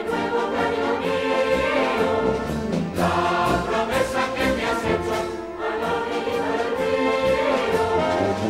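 Music: a choir singing over an orchestra, with sustained chords.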